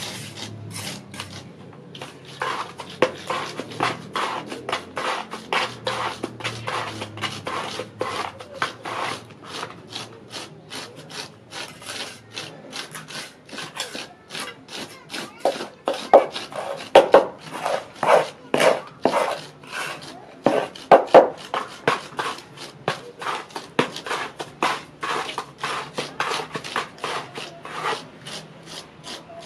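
Quick, rhythmic scraping strokes on fresh cement render, about three a second, as the joints of a faux-stone wall finish are shaped and smoothed; the strokes are loudest around the middle.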